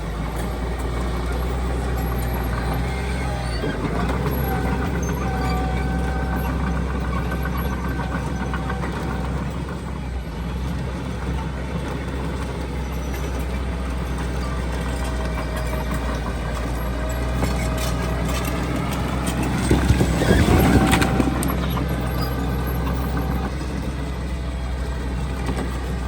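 Heavy diesel earthmoving machinery running steadily, its engine pitch rising and falling with load. About twenty seconds in there is a louder rush of noise lasting about a second.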